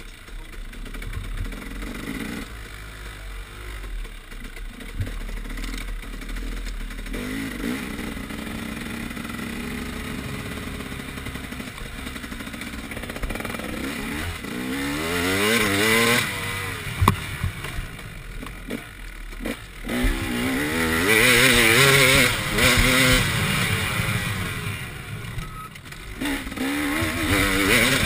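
KTM 300 XC two-stroke dirt bike engine under the rider, running at low revs at first, then revving up and down in repeated surges in the second half as the throttle is worked, with a few sharp knocks from the bike over the trail.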